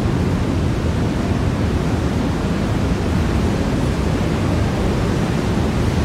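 Loud, steady rushing of a nearby waterfall, heard from inside a rock tunnel beside the falls, with its deep rumble strongest.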